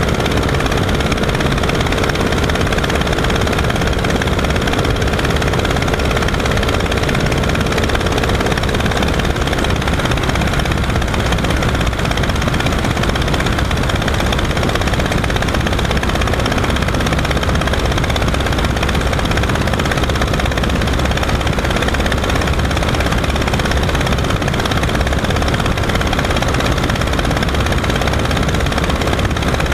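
Legal Eagle XL ultralight's small radial engine and propeller running steadily in cruising flight, with wind rushing past the open airframe.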